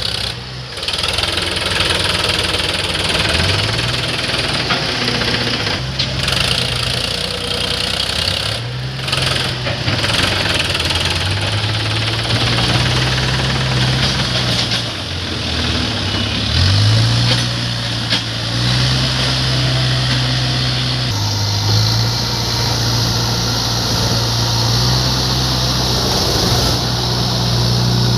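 Diesel engine of a JCB 3DX backhoe loader working under load. It revs up and drops back every few seconds as the hydraulics dig and lift mud.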